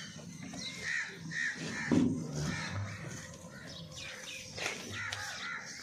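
Crows cawing several times in short, harsh calls.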